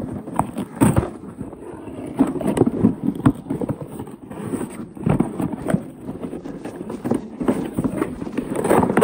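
Cardboard toy box being opened from the bottom: flaps and cardboard packaging scraped and rustled by hand, with irregular taps and knocks.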